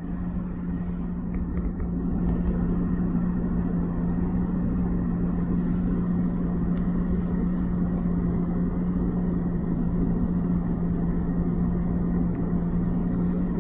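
Steady car noise heard from inside the cabin: a constant low engine hum with even road rumble, unchanging throughout.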